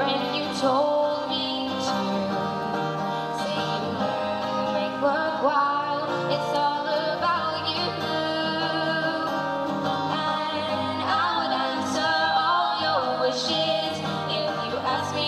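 A girl singing a pop ballad into a microphone, accompanied by acoustic guitar, amplified through a PA.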